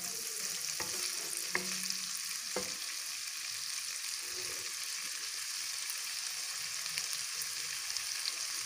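Diced chicken sizzling steadily in butter with garlic in a non-stick wok, being sautéed until its colour changes. A spatula knocks against the pan a few times in the first three seconds as the pieces are stirred.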